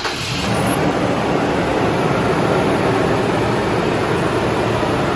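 Toyota Tacoma engine running with a Volant closed cold-air intake airbox just fitted, a loud steady rush of engine and intake noise, with a thin high whine that rises about a second in and then holds.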